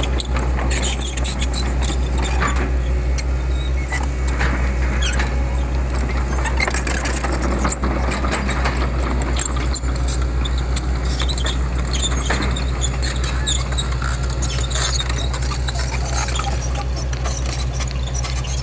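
Heavy earthmoving machine's engine running steadily, with scattered squeaks and clicks over the low hum.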